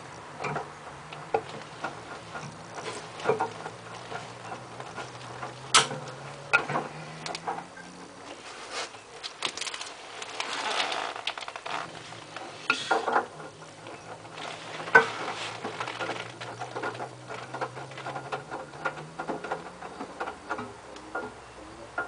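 LG F1222TD direct-drive washing machine tumbling a delicates load in the rinse: the motor gives a low hum while the drum turns, with wet clothes and water making repeated soft knocks and splashes. The drum stops for about three seconds near the middle, with a brief slosh, then turns again.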